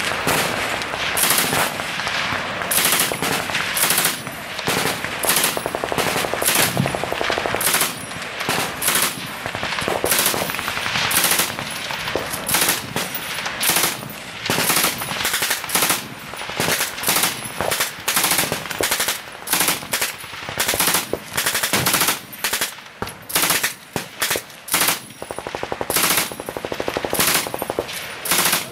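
German MG42 machine gun firing repeated short bursts, over a steady background of further gunfire.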